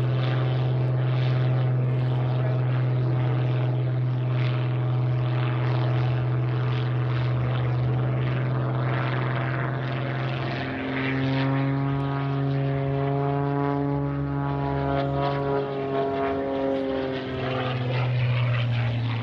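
Piston engine and propeller of an MXS aerobatic monoplane in flight, a steady drone. From about ten seconds in, a higher, shifting tone joins it as the plane manoeuvres, and it fades again near the end.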